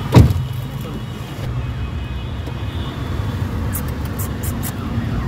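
Steady low rumble of a car's engine and road noise heard inside the cabin while driving, with one sharp thump about a quarter second in.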